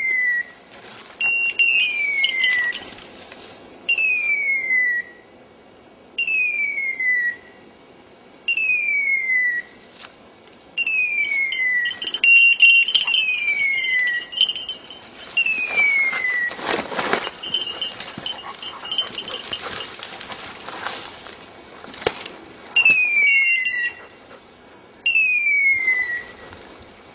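Hunting dog's beeper collar giving its point signal: a falling electronic tone about a second long, repeated every two seconds or so, the sign that the dog is standing on point. A dog bell rings in spells, and brush crackles loudly a little past the middle.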